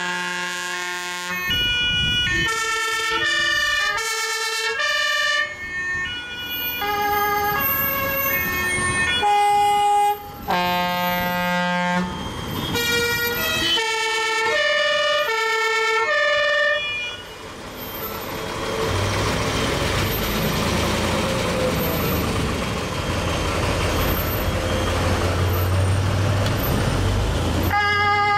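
Several German fire engines sounding their two-tone sirens at the same time, overlapping tones stepping up and down at different pitches. After about 17 seconds the sirens give way to a truck engine running as the vehicle passes close, with road and tyre noise.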